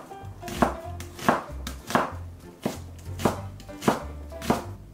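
Kitchen knife chopping an onion on a cutting board: about seven even strokes, a little over half a second apart.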